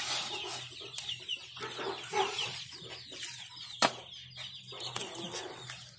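Young chicks peeping steadily in many short, high, falling calls. A single sharp knock sounds a little under four seconds in.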